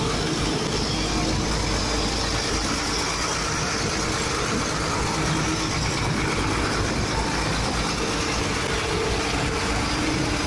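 Steady din of heavy diesel vehicles and plant machinery running, with a low engine rumble underneath.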